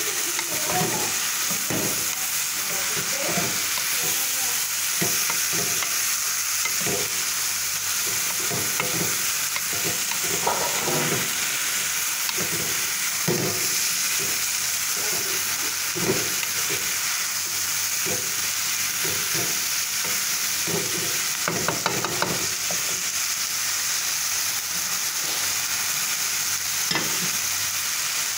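Sliced bitter melon and tomato sizzling in a stainless steel pan with a steady frying hiss, while a wooden spatula stirs and scrapes through it in strokes about once or twice a second.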